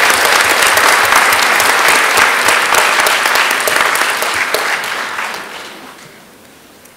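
Audience applause in a large hall, a dense patter of clapping that fades out about five to six seconds in.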